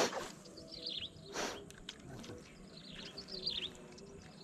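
Birds calling in the background: short, high falling chirps repeated roughly once a second. A brief scuffing noise sounds about a second and a half in.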